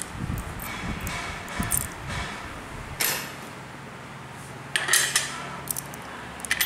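Metal parts of a brush cutter's blade mount being handled and clinking as the steel blade and its metal flange washer are fitted onto the gearbox shaft. There is a sharp knock about three seconds in and a cluster of clinks around five seconds.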